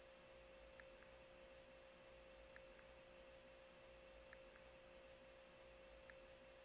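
Near silence: a faint steady hum, with a few very faint ticks.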